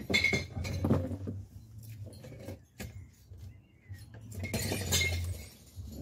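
Glass bottles dropped into a bottle bank, clinking and smashing on the glass inside: scattered clinks through the first few seconds, then a longer crash of breaking glass about five seconds in.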